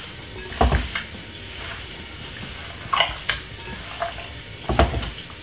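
Gloved hand mixing salmon pieces with oiled, chopped vegetables and seasoning in a glass bowl: wet squelching and irregular clicks, a few louder ones.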